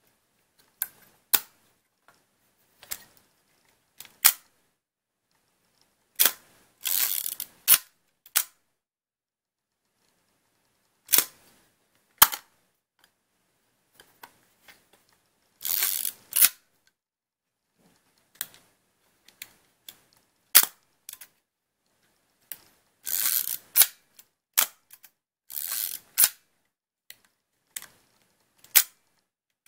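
Zenit-11 35mm SLR operated by hand: sharp clacks of the mechanical shutter and mirror firing, with several short ratcheting strokes of the film advance being wound between them.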